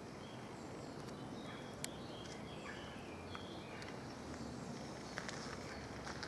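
Songbirds chirping, a scatter of short high notes over a low steady background rumble, with a single sharp click about two seconds in.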